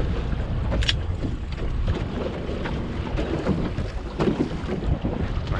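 Wind buffeting the microphone over choppy water slapping against a small boat's hull, a steady low rumble. A single sharp click a little under a second in.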